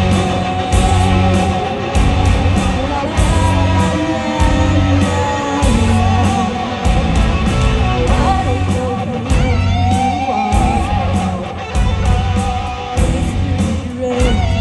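Loud amplified rock music with a heavy, regular beat and a singer's voice over it.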